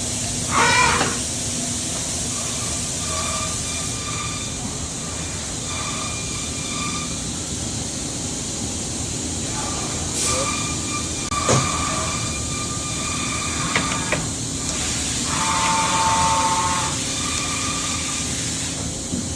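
Okuma MA-40HA horizontal machining center running: a steady mechanical hum with hiss and faint whines that come and go. There is a brief whine near the start, a sharp knock around the middle, a couple of clicks, and a louder whine for a second or two near the end.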